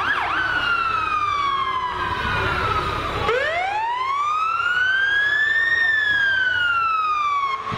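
Fire truck siren wailing: after the last of a fast yelp it falls slowly, then about three seconds in it winds up again to a high peak and falls away near the end. Truck engines run low underneath.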